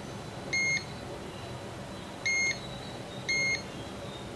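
A digital multimeter beeps three times, short steady high-pitched beeps at uneven intervals of about one to one and a half seconds, as its probes touch test points on a phone logic board.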